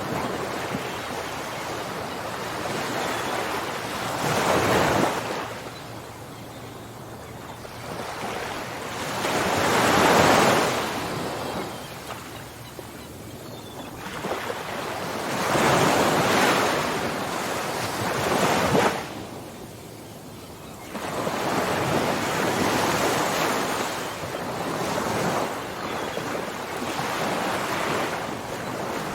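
Ocean surf: waves breaking and washing back, the rushing noise swelling and falling away every few seconds, loudest about ten seconds in.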